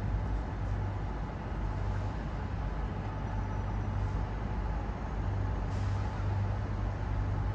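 Railway station ambience: a steady low rumble of trains standing at the platforms, with no distinct events.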